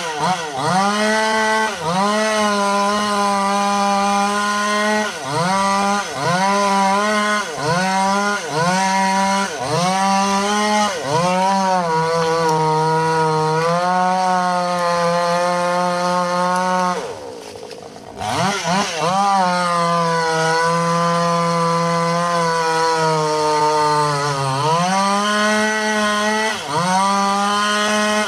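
Two-stroke chainsaw running at high revs while cutting through a large tree trunk. Its engine note dips and recovers about once a second as the cut loads it, then holds steady. About two-thirds of the way through it drops briefly to a lower, quieter note before revving back up.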